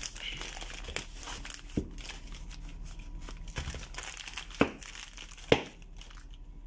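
Clear plastic bag crinkling and rustling as it is pulled off a boxed bearing, with a few sharp knocks of the cardboard box against the table, the loudest near the end.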